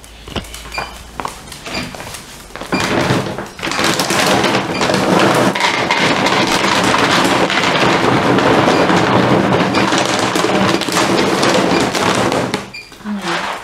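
Dry dog kibble poured from a large bag into a dog bowl: a dense, loud rattling pour that starts about three seconds in, runs for some nine seconds and stops near the end.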